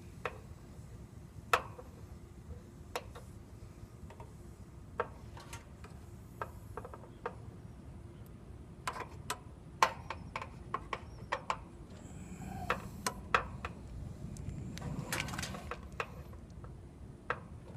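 Irregular light clicks and taps of small hand tools and an inspection mirror against the copper refrigerant line at an air-conditioner condenser's service valve, about twenty of them, some sharper than others. A stretch of rustling and scraping runs from about twelve to sixteen seconds in.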